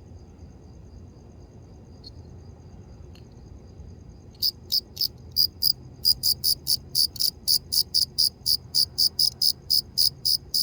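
A cricket chirping. A faint, steady, high trill gives way about halfway through to loud, sharp chirps at the same pitch, repeated evenly about four times a second.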